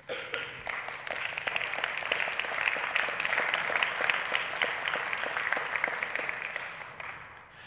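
Audience applause that breaks out suddenly, builds for a few seconds and then fades away near the end.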